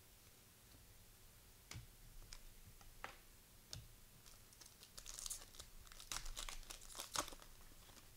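A plastic trading-card pack wrapper being crinkled and torn open. Scattered crackles start after a second and a half and become a dense crinkling about five seconds in.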